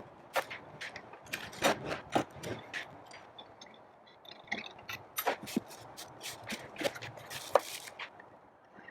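Irregular clicks, taps and scrapes of a car shifter and its packaging being unboxed and handled, with a longer scrape near the end.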